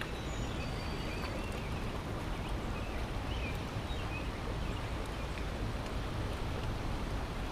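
Steady rush of fast-flowing creek water pouring over and below a spillway, the stream high and rough after heavy rain.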